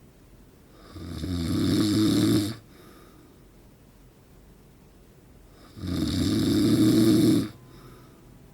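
A man in his forties snoring loudly in his sleep: two long snores about five seconds apart, each swelling quickly and then stopping abruptly.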